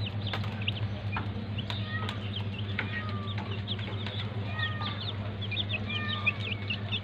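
Young chicks peeping: a steady stream of short, high chirps, several a second, with a few longer sliding calls among them, over a steady low hum.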